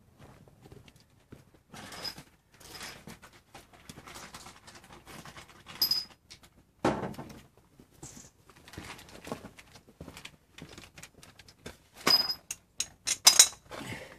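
Metal hand tools and parts clinking and knocking at irregular intervals, a few of the strikes ringing briefly, with the loudest knocks near the end.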